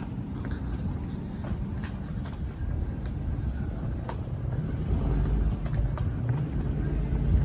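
Street ambience: a steady low rumble, growing louder about five seconds in, with light footsteps on the sidewalk.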